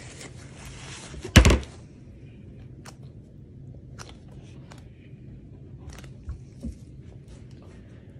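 A loaf of cold process soap being handled on a wooden cutting block: one loud thunk about a second and a half in, then a few faint taps and clicks.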